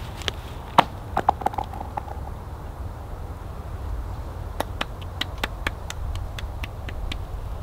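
A thrown stone strikes the thin ice of a frozen pond with a sharp crack about a second in, then a few skittering ticks and a short ringing tone from the ice. Later comes a quick run of sharp hand claps, about three a second.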